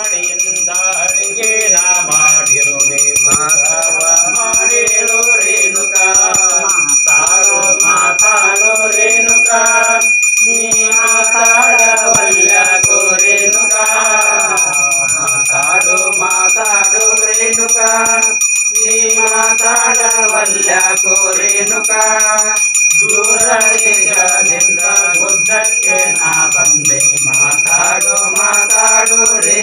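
Puja handbell rung rapidly and continuously during temple worship, a steady high ringing, over devotional music with a long, wavering melody that pauses briefly a few times.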